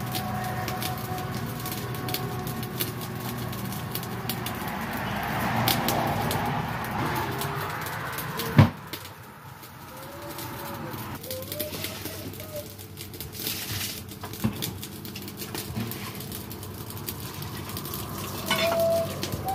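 Small clicks and knocks around a large aluminium cooking pot with a metal ladle in it, with one sharp knock about eight and a half seconds in. A bird calls in the background in short rising-and-falling notes, a few just past the middle and again near the end.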